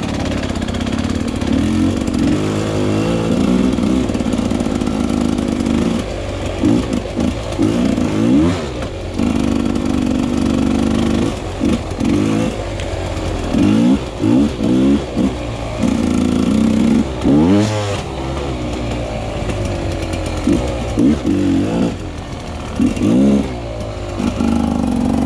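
Off-road motorcycle engine running under way, its revs rising and falling again and again as the throttle is opened and closed, with the sharpest rev swoops about a third and two-thirds of the way through.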